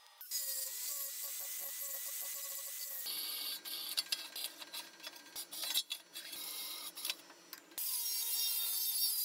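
Power tools working steel in three cuts: first a steady hiss of a tool on a steel box, then from about three seconds a drill press boring into steel square tube with irregular crackles and clicks, then from about eight seconds a Bosch angle grinder grinding the steel with a louder steady hiss.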